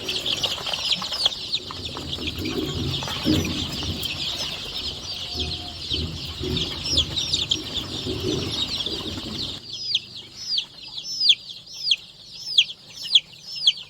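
Chicks peeping: a dense chorus of high, falling peeps with lower clucking-like sounds beneath, then after a cut about two-thirds in, fewer and separate falling peeps, a few a second.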